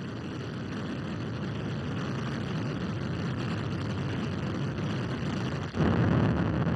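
Soyuz rocket's engines, four strap-on boosters and the core stage, firing in the first seconds after liftoff: a steady, dense rumble that slowly grows louder, dips briefly near the six-second mark, then comes back louder.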